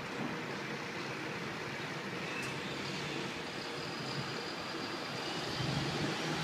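Steady din of city traffic, a continuous hum with no distinct events.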